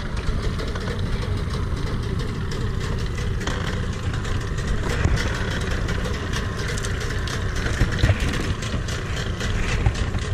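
Outboard motor idling steadily, under a rough rushing noise of wind buffeting the microphone.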